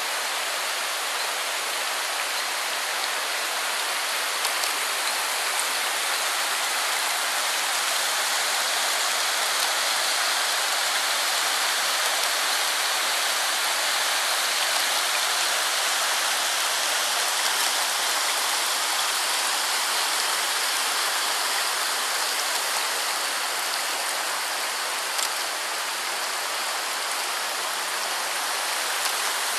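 A rocky mountain stream rushing over boulders: steady hiss and splash of white water.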